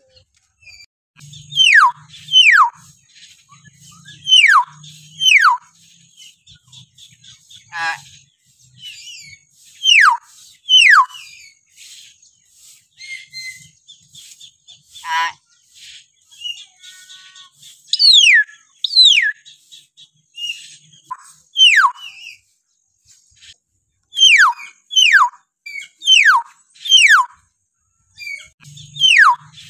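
Bornean hill myna giving loud, down-slurred whistles, mostly in quick pairs every few seconds, with a couple of rattling, trilled calls in between.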